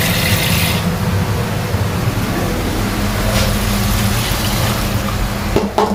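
Tap water running into a plastic tub of soaked chana dal in a steel sink, cutting off about a second in. Then a steady low hum, with a few light knocks near the end as the dal is tipped into the pan.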